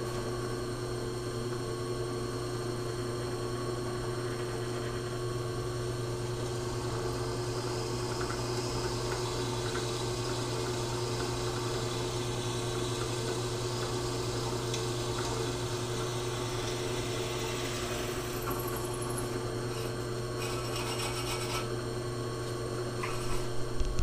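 Drill press running steadily, its motor hum constant, as the bit drills pilot holes through a flat-stock steel plate, with a few brief high scraping sounds near the end.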